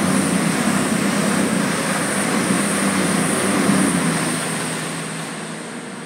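CrossCountry Voyager diesel multiple unit passing close below at speed: steady, loud noise of wheels on rails and underfloor diesel engines, fading away over the last couple of seconds.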